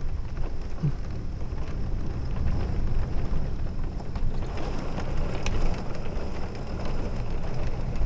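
Thunderstorm noise: wind and rain with a steady low rumble and a few faint ticks of raindrops.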